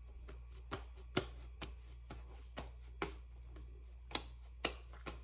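Light clicks and knocks of kitchen things being handled, about eight spread irregularly, over a low steady hum.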